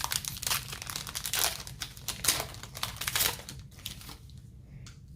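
Foil wrapper of a Pokémon TCG booster pack crinkling and tearing as it is opened by hand. It makes a quick run of sharp crackles that dies down about three and a half seconds in.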